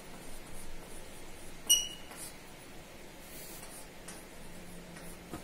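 Chalk scratching on a blackboard as words are written, with one short high squeak of the chalk about one and a half seconds in.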